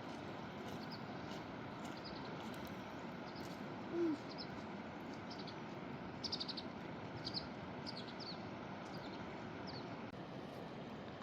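Steady rush of a fast-flowing mountain river, with a small bird chirping repeatedly in short high notes. About four seconds in, a short low call that dips in pitch is the loudest sound.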